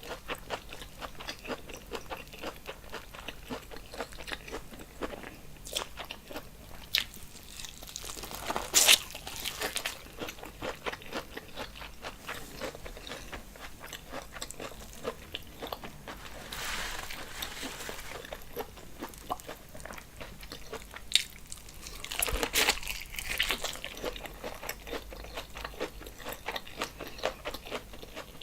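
Close-miked eating and mouth sounds of a seafood boil in sauce: steady rapid chewing clicks and smacks, with louder bites about nine seconds in and again around twenty-two seconds.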